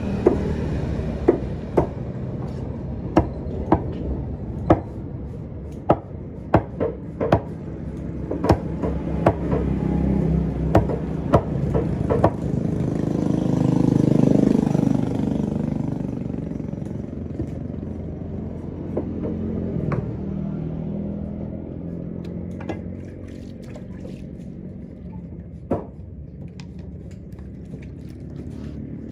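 Knife cutting fresh tuna on a wooden chopping block: sharp knocks of the blade striking the block, many in quick succession through the first half and only a few later, over a steady engine hum. An engine swells and passes, loudest about halfway.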